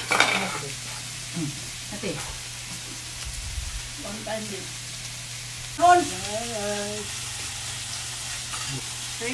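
Pork belly and seafood sizzling in a grill pan on a portable gas stove, a steady frying hiss. Brief voices cut in now and then, loudest about six seconds in.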